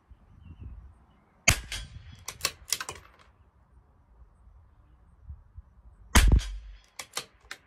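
Two .22 LR rifle shots from a CZ 457 LRP bolt-action rifle, about five seconds apart. Each shot is followed within a second by a short run of metallic clicks as the bolt is worked to eject the case and chamber the next round.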